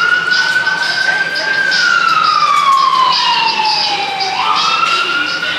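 Emergency vehicle siren wailing. Its tone slides slowly down for a couple of seconds, then climbs quickly again a little past the middle.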